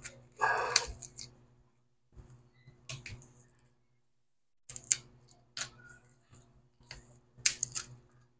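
Sharp clicks and short scrapes of a pry tool working under a smartphone's glued-in battery to lift it out, with a faint steady hum underneath.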